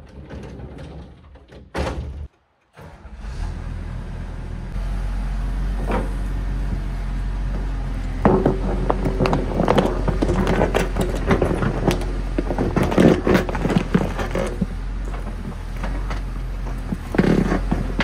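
Tracked hydraulic excavator's diesel engine running steadily, louder a few seconds in. From about 8 s on, the steel bucket clanks and scrapes as it bites into soil and rock.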